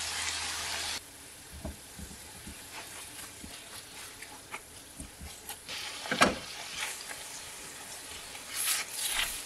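Ground beef and onion sizzling in a stainless steel frying pan as tomato sauce is poured in. About a second in the sizzle cuts off suddenly and drops to a quieter hiss, with scattered scrapes and clicks of a silicone spatula stirring the meat sauce in the pan.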